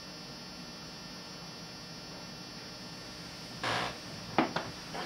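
Steady electrical hum with a faint hiss. Near the end come a short rustle, a sharp click and a few small knocks.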